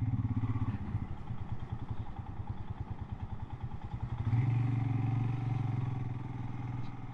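Royal Enfield Himalayan's single-cylinder engine running at low speed with a pulsing beat, then a louder, steadier note from about four seconds in.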